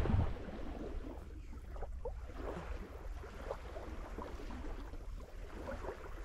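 Light wind rumbling on the microphone, stronger for a moment at the start, with faint small clinks of a spoon in a metal bowl.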